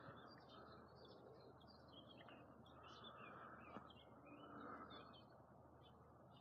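Faint songbirds chirping and singing in short irregular phrases over quiet outdoor background hiss.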